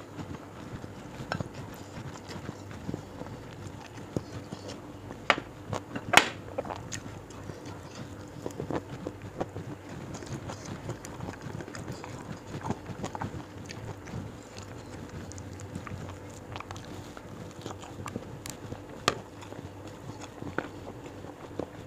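Close-miked eating by hand: chewing and mouth sounds as rice and side dishes are eaten, with small clicks of fingers against the plate. A few sharper clicks stand out about five and six seconds in and again near the end.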